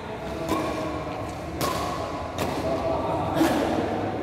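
Badminton rally: rackets striking the shuttlecock four times, about once a second.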